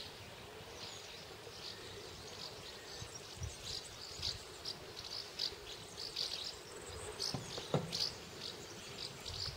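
Insects, likely crickets or grasshoppers, chirping in short, high chirps at irregular intervals over faint outdoor background noise, with a single sharp click about eight seconds in.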